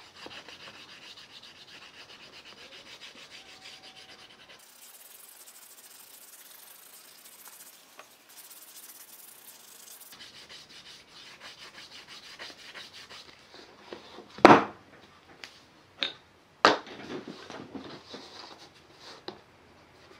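A bar of red rouge (iron oxide) stropping compound is rubbed back and forth along the edge of a firm veg-tan leather scrap: a steady, fine scraping rub for the first dozen seconds. Then come a few sharp knocks and clacks, the loudest about fourteen seconds in.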